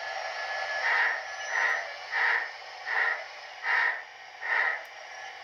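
Steam exhaust chuffs from the ESU LokSound sound decoder of an HO-scale Rivarossi Blue Ridge 2-6-6-6 model locomotive, played through the model's small onboard speaker as it runs slowly. About six chuffs, roughly one every 0.7 seconds, spacing out a little toward the end.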